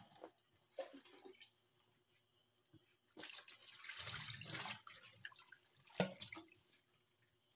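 Water splashing and running in a stainless steel sink as it is rinsed by hand, with a louder gush of water about three seconds in and a sharp knock against the sink a few seconds later.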